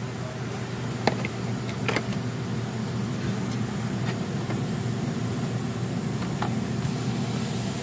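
Steady low machine hum, with a few light clicks from handling a plastic wiring connector on the front strut's damping sensor, about a second in, two seconds in and near the end.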